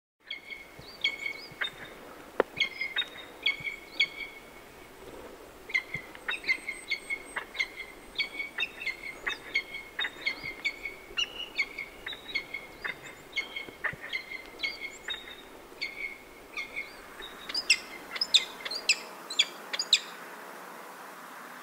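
Peregrine falcon giving repeated ee-chup calls, short notes coming about two a second over a background hiss. Near the end the calls come louder and sharper.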